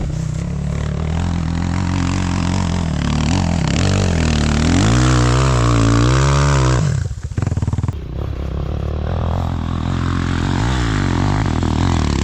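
Enduro dirt bike engine running under throttle. The revs rise and waver about four seconds in, drop off briefly near seven seconds, then pick up again.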